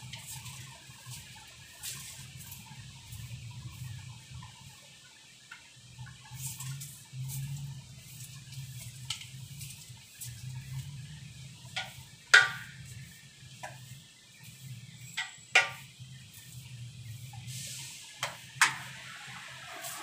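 Birds chirping: a handful of short, sharp calls in the second half, the loudest a little past halfway, over a steady low hum.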